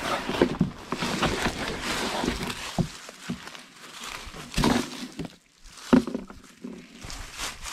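Handling noise of a plastic chair being pulled out of a fabric pop-up ground blind: scuffing in dry leaves and rustling, with a few knocks, the sharpest about six seconds in.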